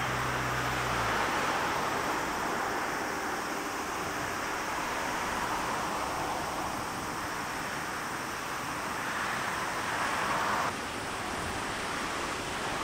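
Boeing 777-300's Rolls-Royce Trent 800 turbofans at taxi power, a steady rushing hiss. A low hum stops about a second in, and the sound drops abruptly near the end.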